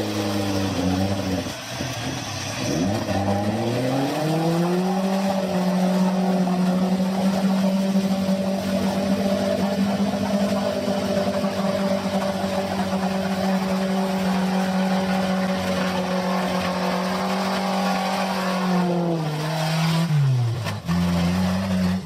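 A vehicle engine running at high revs. Its pitch dips about two seconds in, climbs and holds steady for about fifteen seconds, then falls away near the end.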